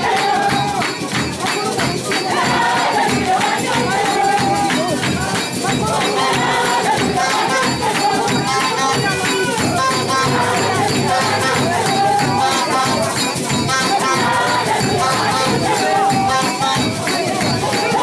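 A congregation of women singing a hymn together over shaken hand percussion that keeps a fast, steady beat.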